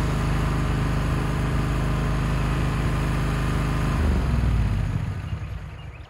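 Small lawn mower engine running steadily, then near the end it slows and fades out.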